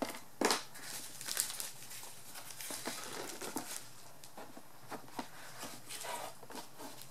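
A Fel-Pro head gasket being handled on its cardboard packaging: scattered rustles, crinkles and light taps, the loudest about half a second in.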